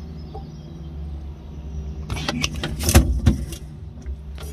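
Steady low hum of the mini-truck's engine idling. A few sharp clicks and knocks come about two to three seconds in, from the Royce SWR meter being handled and its calibrate knob set for the forward reading.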